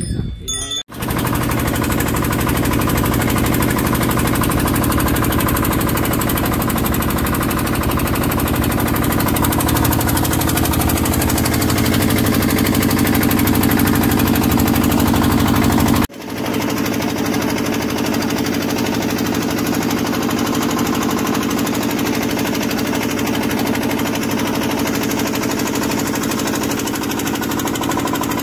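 Tour boat's engine running steadily on board, a continuous low drone. It breaks off briefly about halfway through and then resumes.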